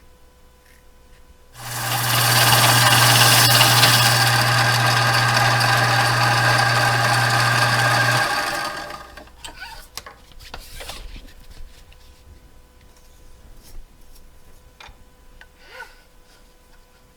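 A power tool motor starts about a second and a half in and runs steadily for about seven seconds, with a low hum under a loud hiss, then cuts off. Light clicks and taps of handling follow.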